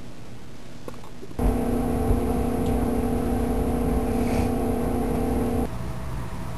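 A machine's steady electric hum that switches on suddenly about a second and a half in and cuts off about four seconds later.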